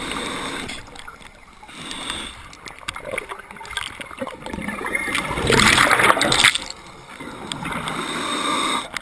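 Water noise heard through an underwater camera housing: a changing gurgling rush, with a louder burst of bubbling from about five and a half to six and a half seconds in.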